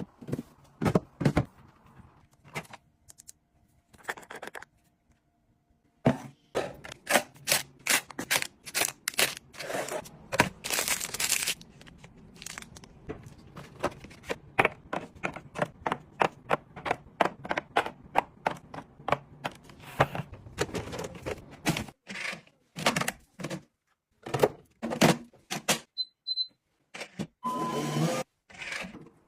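Household items and plastic packaging being handled and set down: a rapid run of clicks, taps and knocks with crinkling and tearing. A brief high beep comes near the end.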